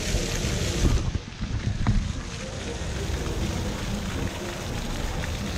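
Water spraying from an outdoor beach rinse-off shower and splattering on the ground, a steady hiss.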